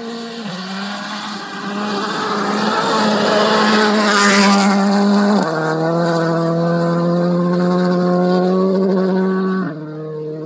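Rally car at high revs flat-out on a gravel stage, growing louder to a close pass about four seconds in, after which the engine note drops and holds steady as the car pulls away.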